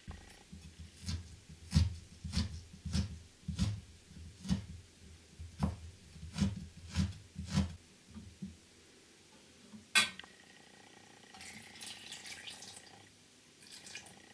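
Kitchen handling sounds: about a dozen soft pats and knocks as a small yamame trout is dabbed dry with paper towel on a stainless-steel counter, then a sharp clank against a stainless saucepan about ten seconds in. Near the end water is poured from a measuring cup into the pan.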